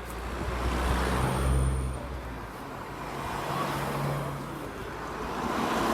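Motor vehicles passing close by, their low engine hum swelling and fading twice over a steady rush of wind and road noise.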